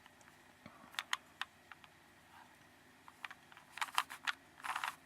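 Rubik's Cube layers being turned by hand: sharp plastic clicks, a few scattered at first, then quick runs of clicks in the last second and a half.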